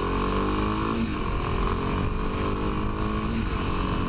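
Kawasaki KLX 250's single-cylinder four-stroke engine pulling under acceleration on the move. Its pitch climbs, breaks at a gear change about a second in, then climbs again.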